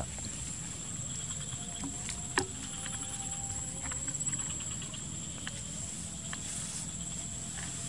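Insects in swampy scrub at dusk, keeping up a steady high-pitched drone with a faster pulsing chirp now and then. One sharp click about two and a half seconds in.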